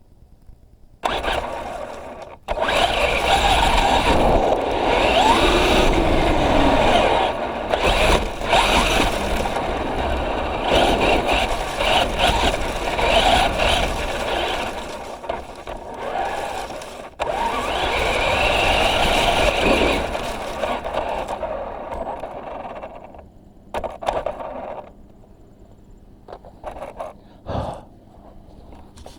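Traxxas Rustler 4x4 RC truck driving over the ground: electric motor whine that rises and falls with the throttle, over a rough scraping of tyres and chassis. It runs loud for about twenty seconds, then dies away, with a few short knocks and scrapes near the end.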